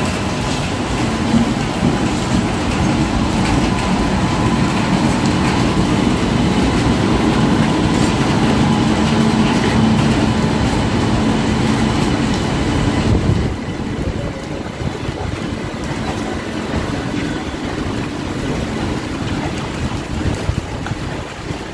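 Electric locomotive and the coaches of the Garib Rath Express passing close by on the track. The locomotive's loud running hum comes first; about 13 seconds in it falls away to the quieter rumble of the coaches' wheels on the rails, with occasional clicks.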